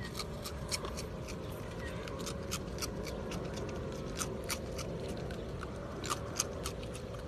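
Raccoon crunching Froot Loops cereal: crisp, irregular crunches in short clusters with brief pauses between them.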